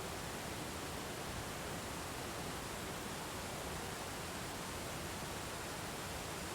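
Steady, unbroken rush of a waterfall, even across high and low pitches with no change.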